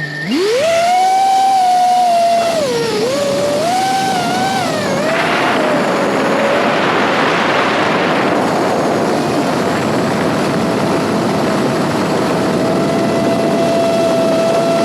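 FPV drone's electric motors and propellers whining. The pitch jumps up sharply as the throttle opens at the start, wavers with throttle changes for a few seconds, then holds a steady high whine over a rushing hiss of air.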